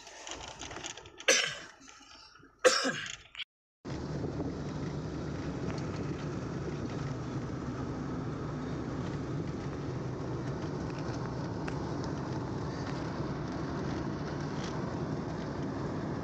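Steady road and engine noise of a vehicle driving, heard from inside the cabin, starting after a brief cut about four seconds in. Before it, two short loud sounds come about a second and a half apart.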